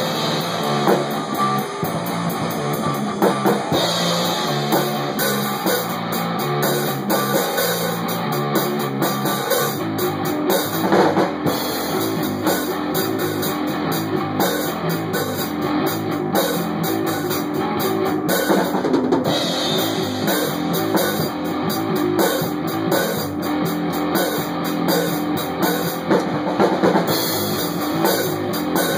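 Rock music with drums and guitar playing throughout.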